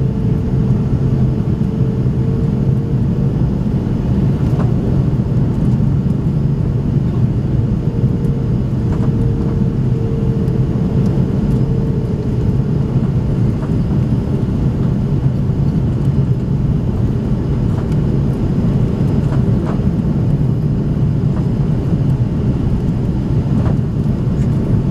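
Airbus A330 cabin noise on final approach, heard from a seat over the wing: a steady low rumble of the engines and airflow. A thin steady hum rides on top of it and fades out about halfway through.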